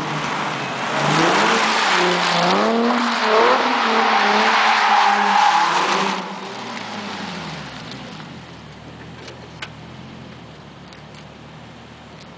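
Infiniti G37's V6 with a custom exhaust accelerating toward and past, its engine note rising as it revs. The sound drops off suddenly about six seconds in as the car goes by, then the exhaust note fades as it drives away.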